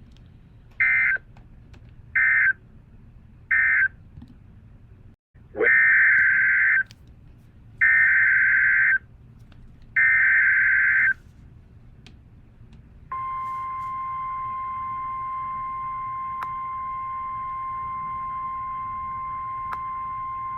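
NOAA Weather Radio Emergency Alert System signalling. First three short SAME data bursts sound, marking the end of the previous message. Then come three longer SAME header bursts for the next alert, and about 13 seconds in the steady, loud 1050 Hz Warning Alarm Tone starts and holds.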